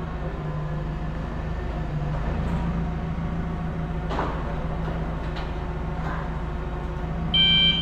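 Steady low hum of a running engine or motor, with a few faint knocks about four to six seconds in. Near the end a high electronic beeping starts, short beeps repeating like a backup or warning beeper on site equipment.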